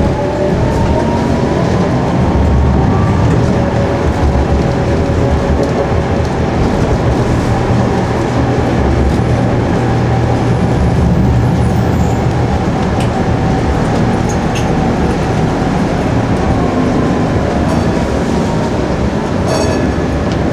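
Electric rail car running, heard from inside the passenger cabin: a steady heavy rumble, with a motor whine rising in pitch near the start as it picks up speed.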